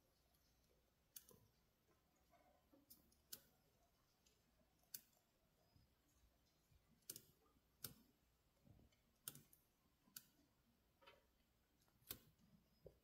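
Near silence: quiet room tone with about a dozen faint, sharp clicks at irregular intervals of roughly one every second.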